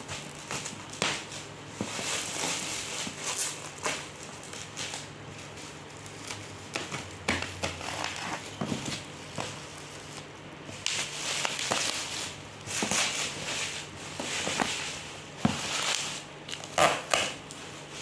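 Packaging being handled and opened: irregular crinkling and rustling of plastic and cardboard, broken by sharp clicks and knocks.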